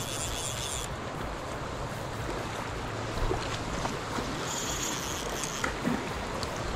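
Steady rush of flowing creek water with wind buffeting the microphone, and a few small knocks about three seconds in and again near six seconds.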